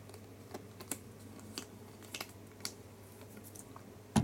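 A few light clicks and taps spread out, then one sharper knock near the end: small objects being handled, over a faint steady low hum.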